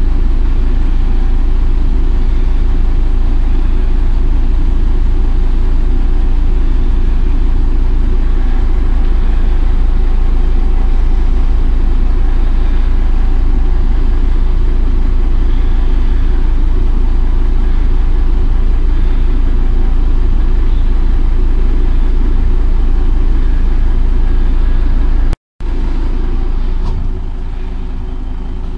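MAN NG 312 articulated bus's diesel engine idling steadily with a deep rumble, heard from inside the bus. Near the end the sound cuts out for a moment and comes back quieter.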